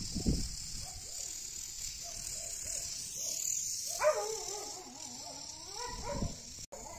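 A dog yelping and whining: a few short calls, then a louder, long wavering whine about four seconds in.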